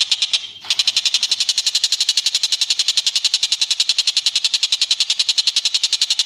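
Recorded birdsong: one bird giving a fast, continuous, high trill of about thirteen notes a second. It breaks off briefly about half a second in, then carries on.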